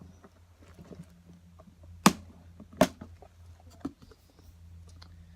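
Two sharp clicks about three quarters of a second apart, amid faint small ticks and handling noises, over a steady low hum.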